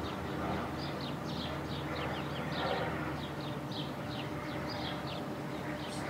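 Songbirds singing, many short chirps in quick succession, over a steady low mechanical hum from the railway.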